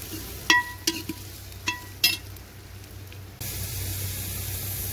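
Chopped onions frying in oil in an aluminium pot, stirred with a steel ladle that knocks against the pot's side four times with short metallic rings. About three and a half seconds in, a louder steady sizzling hiss sets in abruptly.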